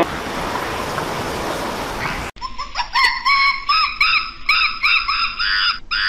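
An even rushing noise for about two seconds, cut off suddenly, then a run of short, high, honking animal calls, about three a second.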